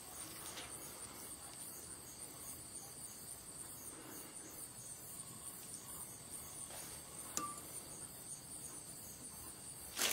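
Faint, steady, high-pitched pulsing trill of insects such as crickets, with a single light tap about seven seconds in.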